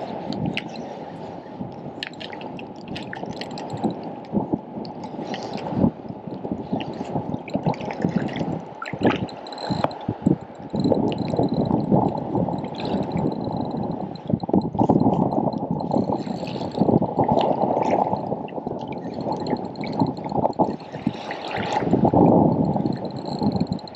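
Water sloshing and gurgling close to the microphone, swelling and easing, with scattered small clicks and knocks.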